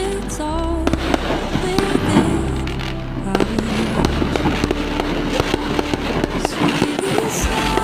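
Fireworks going off in a rapid string of sharp bangs and crackles, with voices and music under them.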